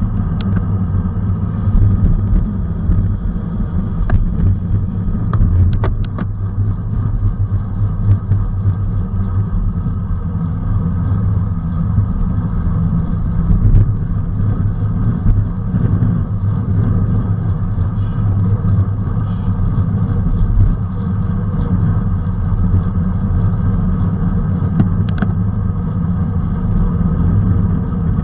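Steady wind rumble on the microphone of a camera riding on a racing bicycle at speed, with a few sharp clicks scattered through it.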